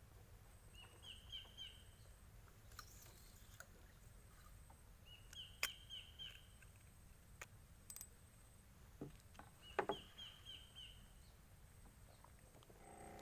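A bird calls three times, each call a quick run of about five repeated high notes, over a faint steady hiss. A few sharp clicks and taps fall in between, the loudest about two-thirds of the way through.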